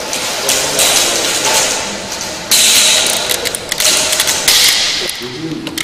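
Hand-operated cable tie tensioning gun ratcheting as it draws a plastic tie tight around white plastic tubing: a run of rasping clicks, loudest from about halfway through.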